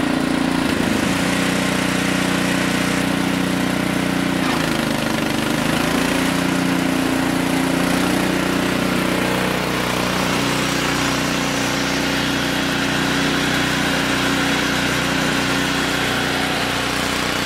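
Cast-iron Kohler K341 single-cylinder engine of an Allis Chalmers 416 garden tractor running steadily. Its pitch shifts a few times in the first ten seconds.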